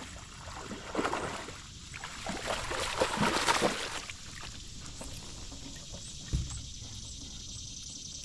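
Water splashing and sloshing around a fishing boat, loudest for a few seconds in the first half, then a single knock a little after the middle, with a faint steady high whine behind it.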